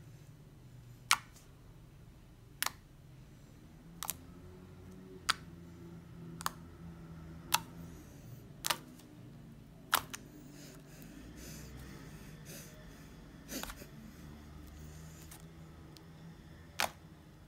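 Fingers poking into sticky homemade clear-glue glitter slime, each poke giving a short sharp click or pop. About ten of them, roughly one every second or so, with a longer pause near the end.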